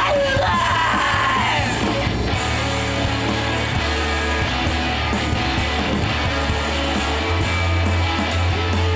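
Live rock band playing: a woman singing over electric guitars, bass guitar and drums, her vocal line ending about two seconds in while the band plays on with regular cymbal hits.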